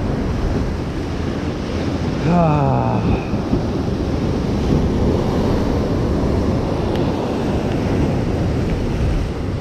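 Ocean surf breaking and washing over the boulders of a rock jetty, a steady loud rush of water, with wind buffeting the microphone.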